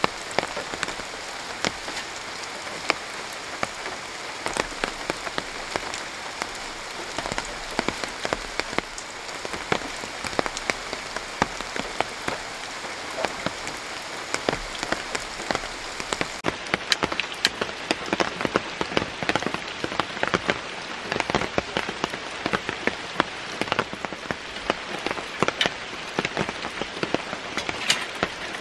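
Steady rain falling quietly, with many single drops tapping sharply through the hiss. About sixteen seconds in, the high hiss thins and the drop taps stand out more.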